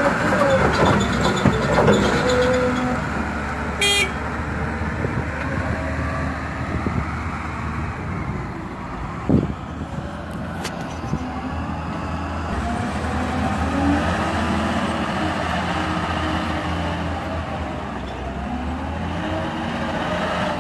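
Caterpillar 950F wheel loader's diesel engine running under load, its revs rising and falling as it works. Near the start, loose rock and dirt pour from the bucket into a steel dump-truck bed. About nine seconds in there is a single knock.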